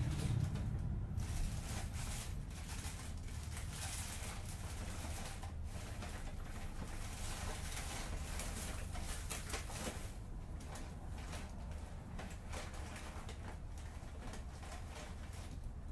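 Interior running sound of a 2003 Hino Blue Ribbon City KL-HU2PREA city bus: a steady low diesel engine rumble with a fainter hiss above it, slowly easing off.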